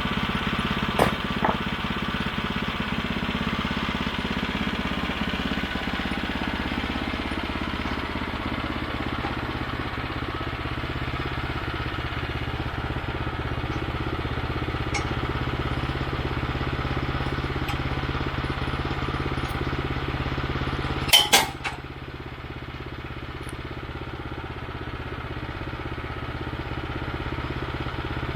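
Small gasoline engine of a portable bandsaw sawmill running steadily, with two light knocks about a second in and a brief, loud metallic clatter about three-quarters of the way through.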